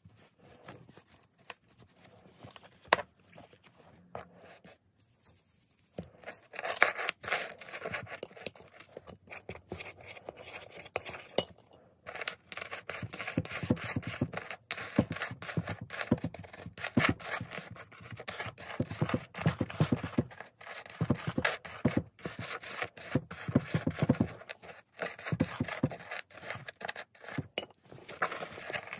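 A washcloth rubbing a metal pendant, buffing it dry after a baking-soda scrub. The rubbing strokes are mixed with small clicks and knocks: sparse at first, then rapid and continuous from about six seconds in.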